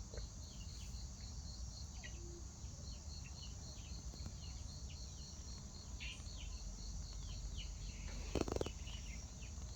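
Insects, likely crickets, chirping steadily in a high, even pulse of about four a second, with scattered short falling chirps beneath. There is a brief knock about eight and a half seconds in.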